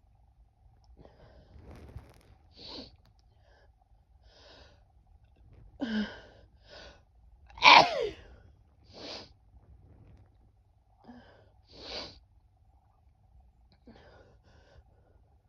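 A woman sneezing: one loud sneeze about eight seconds in, with a falling voiced cry, and a strong burst just before it. Short sniffs and breaths come every second or two around it.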